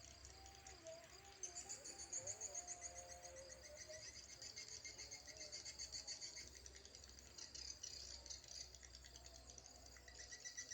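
Swiftlets twittering: a continuous fast, rattling trill of high chirps, faint, louder about a second and a half in and again near the end. Lower wavering whistles run under it for the first few seconds.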